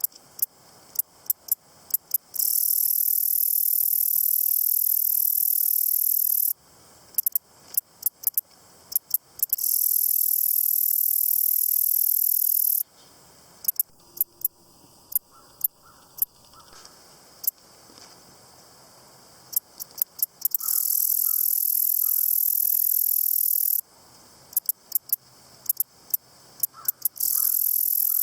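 Grasshopper stridulating: runs of dry, high-pitched ticks that close up into a continuous high buzz lasting three to four seconds, in a cycle that repeats four times.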